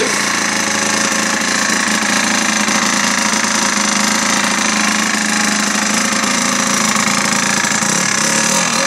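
Aprilia Old SR 50 scooter's air-cooled Minarelli 50 cc two-stroke engine running steadily, which the owners believe probably has a damaged bearing.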